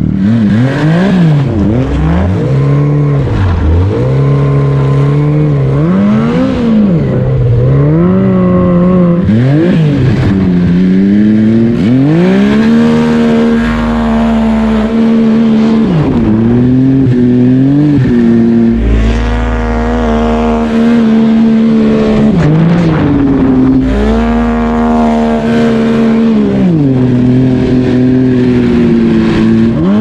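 Yamaha snowmobile engine under riding throttle. It revs up and drops back many times, with its pitch swooping up and down, and holds steady at high revs for a couple of seconds at a time in the middle of the run.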